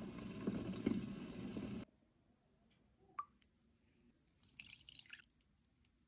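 Water bubbling at a boil around eggs in a lidded pot, which cuts off abruptly after about two seconds. Then near quiet, with a single click about three seconds in and a brief rustle near the end.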